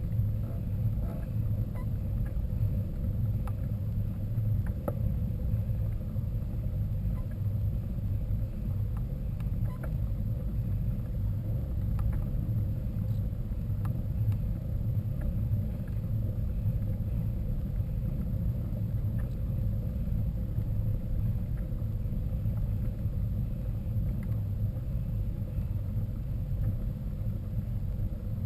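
Steady low rumble of wind buffeting the microphone and tyre noise from a mountain bike on a dirt trail, with scattered light clicks and rattles.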